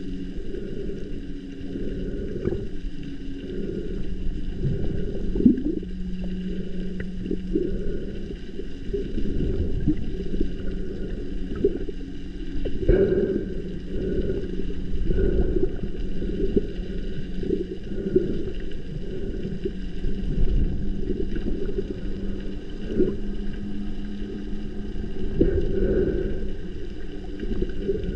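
Underwater sound of a boat motor carried through the water: a steady low hum made of several held pitches, with crackling and occasional sharp clicks.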